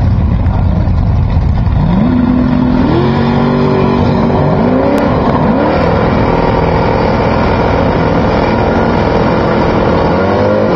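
Two drag-race cars' engines running loud at the starting line, revved several times with rising pitch. Near the end one car spins its rear tyres in a burnout.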